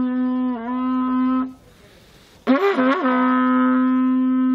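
Curved horn trumpet blown in long, steady held notes on one pitch. The first blast ends about a second and a half in; after a short gap a second blast starts with two quick upward flips in pitch and then holds steady.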